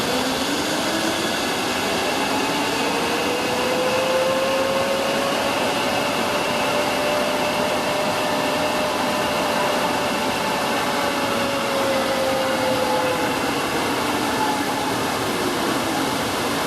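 Zip line trolley pulleys whining along the steel cable, the whine climbing in pitch as the rider picks up speed, holding at the middle of the ride, then dropping as the trolley slows near the end. A steady rushing noise runs underneath.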